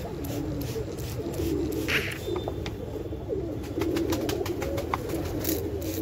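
Domestic pigeons cooing, several low warbling coos overlapping without a break, with a run of light clicks a little after the middle.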